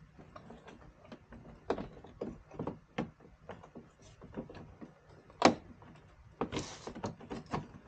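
Irregular clicks and knocks of a screwdriver, screws and plastic fender-flare trim being handled while Torx screws are worked out of a Jeep fender. There is one sharper knock about five and a half seconds in, and a short scraping rub about a second later.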